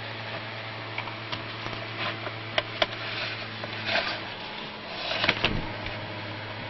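Small Sunbeam Blizzard electric fan running with a steady hum and rush of air. Over it come a few sharp clicks and knocks and two short rustling handling noises in the middle.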